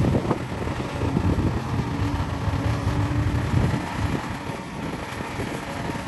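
Remote-controlled excavator and bulldozer at work: small motors and gears running, with an on-and-off steady hum over rough, uneven rumbling and clatter.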